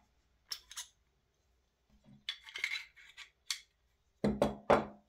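Small airsoft rifle parts handled on a workbench: a few light clicks and clinks, a short scrape, and two louder knocks near the end.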